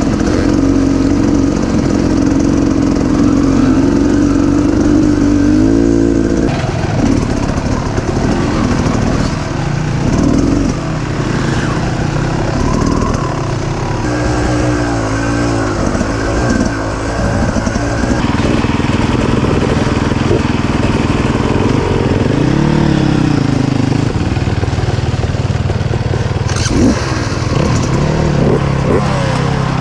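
Dirt bike engine running while riding, revving up and down repeatedly between steadier stretches.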